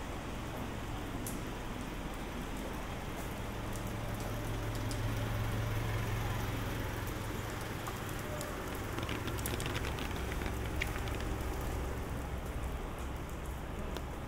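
Steady rain falling on city streets and surfaces, with scattered sharp drips that bunch up a little past the middle. A low hum swells in the middle and then fades back.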